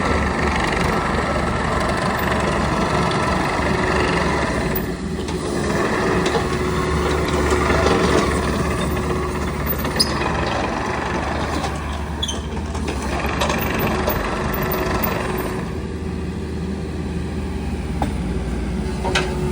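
Kubota KX027-4 mini excavator's diesel engine running steadily, its level rising and easing off at times, with a sharp click about ten seconds in.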